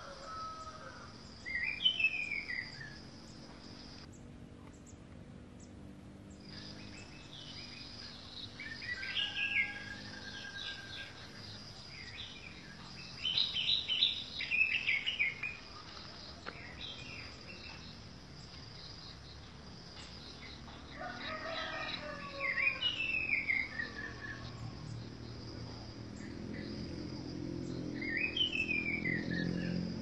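Orange-headed thrush singing: short, varied phrases a few seconds apart, several with quick falling whistled notes. A low hum builds near the end.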